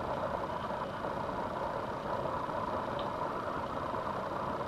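Steady background hum with no rhythm or pitch change, and a faint short click about three seconds in; no distinct pumping or grease sound stands out.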